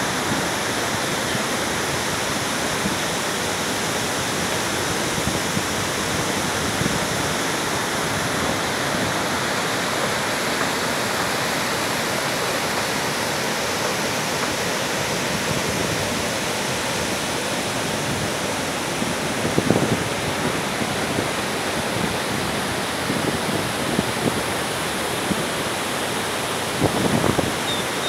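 Waterfall water rushing over tiered cascades, a steady, even wash of noise. A few short bumps come about twenty seconds in and again near the end.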